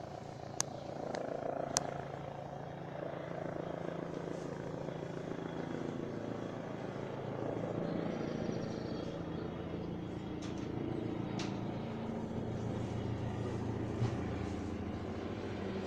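Helicopter approaching the helipad, its steady rotor and engine noise growing louder in the last few seconds.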